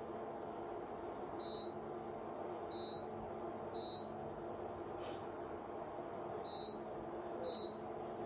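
Induction cooktop's touch control panel beeping as its buttons are pressed: five short, high beeps at uneven intervals, over a steady low hum.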